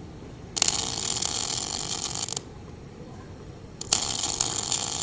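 Sanjoe NBC 500 MIG welder's arc crackling in two bursts of about two seconds each, about a second and a half apart. This is the machine's spot (stitch) weld mode, switching the arc on and off by itself with the trigger held and long weld and pause times set.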